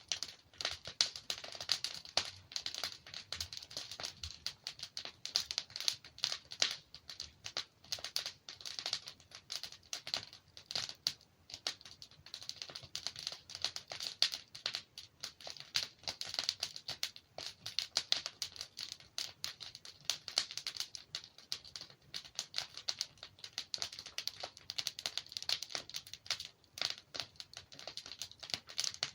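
Wood fire crackling, with a dense run of small irregular pops and snaps from burning logs.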